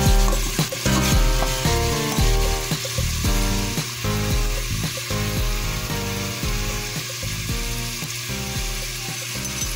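Minced garlic sizzling in melted butter in an aluminium pot, a steady frying hiss. Background music with a steady beat plays over it.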